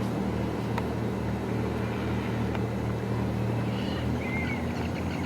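A motor runs with a steady low hum. A few short, high bird calls come in about four seconds in.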